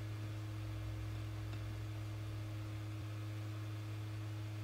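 Steady low electrical hum with a fainter higher tone and a faint even hiss, unchanging throughout, with no distinct knocks or clicks.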